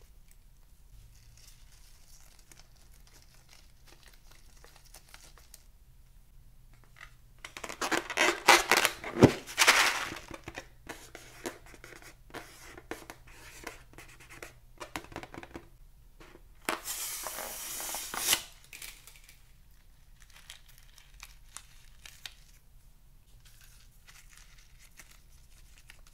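Close-up handling of water balloons and slime ingredients: scissors snipping open a bead-filled rubber balloon, and crinkly, tearing bursts about 8 to 10 seconds in, with one sharp click, and again about 17 seconds in, among quiet rustles and small ticks.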